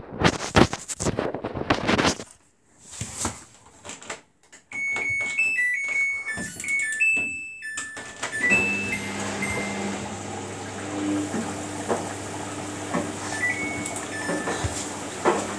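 Samsung WF80F5E0W4W washing machine's control-panel beeper playing its short electronic power-on tune about five seconds in, after some knocks and clicks. Then single button beeps sound as cycle options are set, over a steady low hum.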